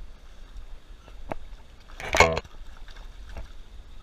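A hooked bass splashing and thrashing in shallow water at the bank as it is grabbed by hand, with one loud, brief splash about two seconds in and a few small knocks around it.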